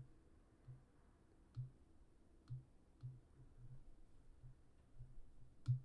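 Faint, irregular clicks of a computer mouse, roughly one a second, with a louder click near the end.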